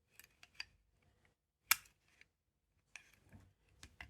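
Scattered metallic clicks from a heavy-duty night latch with a Chubb cylinder as the picked lock is turned back in reverse, its lever pack and bolt moving; one sharper click stands out a little under two seconds in.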